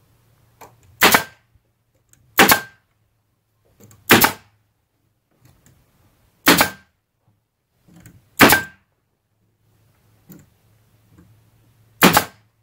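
Pneumatic stapler driving staples into wooden siding boards: six sharp shots at uneven intervals of one to four seconds, with a faint low hum between some of them.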